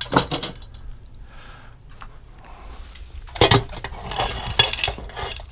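Small metal parts and screws clinking and rattling as they are handled at a motorcycle engine's clutch: a few sharp clicks at the start, then a busier run of clinks a little past halfway.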